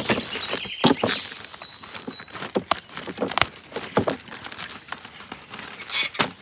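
Irregular light clicks and knocks of a die-cast toy jeep being handled and tested.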